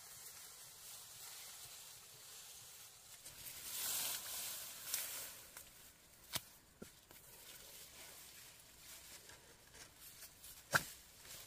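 Soft rustling that swells about four seconds in, then a few sharp clicks, the loudest near the end.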